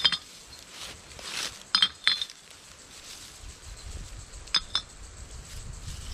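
Empty drink containers clinking together as they are dropped into a shopping bag: a clink at the start, then two pairs of sharp clinks about two seconds apart.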